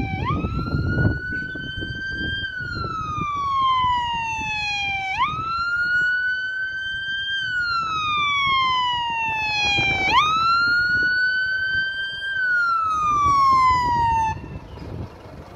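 Fire truck siren on a wail: three cycles of about five seconds, each rising quickly and falling slowly, over low vehicle noise. It cuts off near the end.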